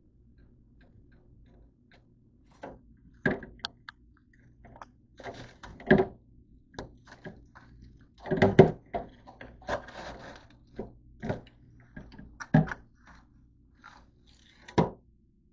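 Rummaging in a small refrigerator's freezer compartment: a run of knocks, clicks and thunks from the door, the compartment flap and items being moved, with the crinkle of a shrink-wrapped frozen pizza being pulled out. A low steady hum runs underneath.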